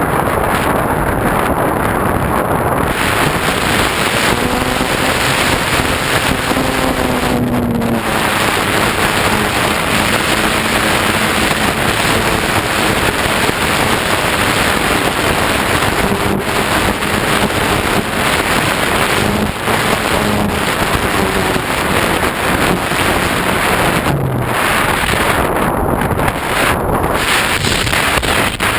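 Steady heavy wind rush over a camera mounted on a ParkZone Radian RC glider in flight. A faint hum rises and falls in pitch a few times.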